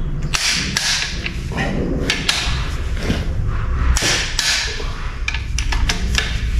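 Socket wrench working the main bearing cap bolts on a six-cylinder John Deere engine block, ratcheting and knocking in a string of short bursts of clicks, over a low steady hum.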